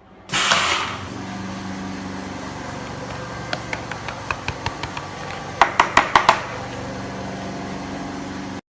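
Ultrasonic plastic welding machine working: a loud hissing burst about half a second in, then a steady hum with scattered clicks and a quick run of about six sharp clicks around six seconds in.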